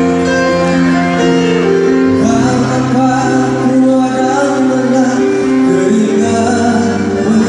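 Live music in a large hall, played through the PA: a violin over long held keyboard chords, with a wavering melody line coming in about two seconds in.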